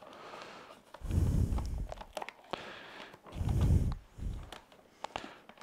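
Handling noises from a shop vac being assembled: two longer low rubbing sounds as parts are worked inside the plastic canister, with small clicks and taps in between.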